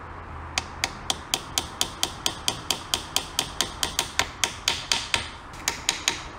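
Small hammer tapping dowel pins into an engine's water pump housing: a long run of light, even taps, about four a second, beginning about half a second in, with a brief pause near the end.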